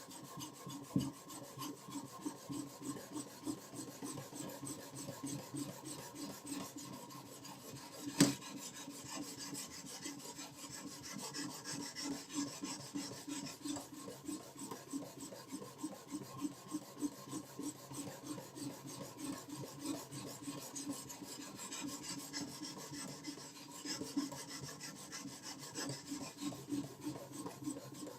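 Knife blade being stroked back and forth along a sharpening stone, a quick, even rhythm of rasping strokes. A single sharp click sounds about eight seconds in.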